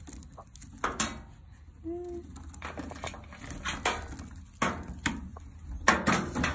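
Handling noise from a hay net's rope being worked loose by hand: a run of irregular scrapes, rustles and clattering knocks against the field shelter's metal wall and wooden beam, with a brief squeak about two seconds in.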